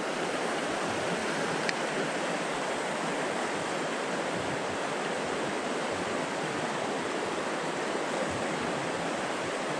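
A mountain stream runs over rocks in a small riffle into a pool, making a steady rushing of water.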